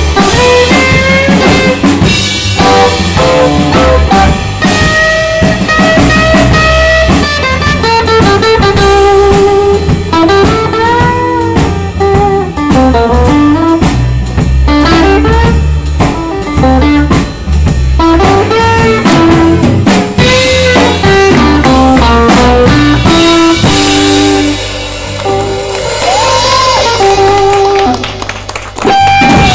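Live electric blues band playing: a lead electric guitar line with bent notes over electric bass and drum kit.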